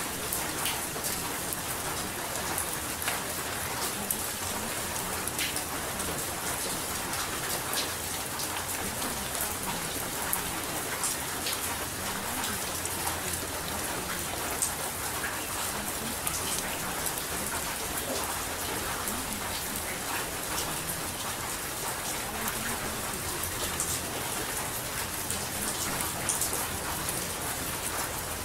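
Steady rain: an even hiss with many scattered sharp drop ticks, unchanging in level.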